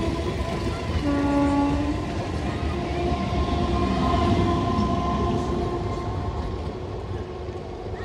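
LHB passenger coaches rolling slowly past on the rails, ending with the luggage, brake and generator car; the rumble eases near the end as the last coach goes by. A short train-horn note sounds about a second in.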